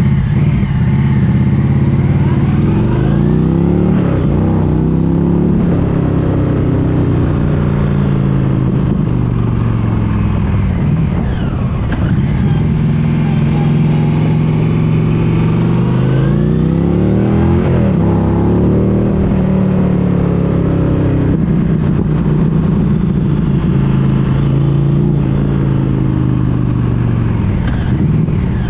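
Indian PowerPlus 112 V-twin running through an ARO GP slip-on exhaust, pulling hard with its pitch climbing and dropping back again and again, as it does when shifting through the gears. The note is loud and deep.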